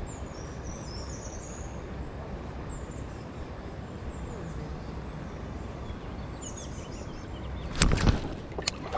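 Small birds chirping in short high bursts over a steady low background rumble, with a couple of sharp, loud knocks near the end.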